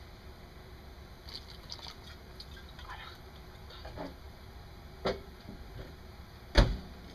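Pot of fish-ball soup simmering, with faint dripping and liquid sounds and scattered small ticks. Two sharp knocks come about five seconds in and again, louder, about a second and a half later.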